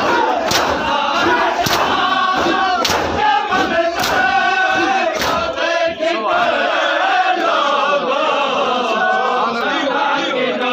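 Crowd of men chanting a Muharram lament together, with loud rhythmic slaps of hands on bare chests (matam) keeping the beat. The chest-beating stops about halfway through while the chanting goes on.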